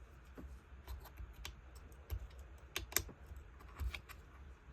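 Light, irregular clicks and taps of hands and a tool working on a small leaf blower's plastic housing while its screws are checked for tightness.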